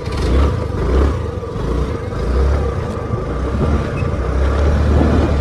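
Motor scooter riding along, its small engine running under a heavy, uneven low rumble of wind buffeting the microphone.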